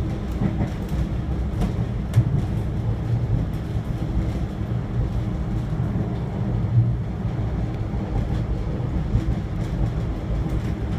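Interior running noise of an Adelaide suburban diesel railcar travelling between stations: a steady low rumble of engine and wheels on rail, with a few sharp clicks from the wheels in the first couple of seconds.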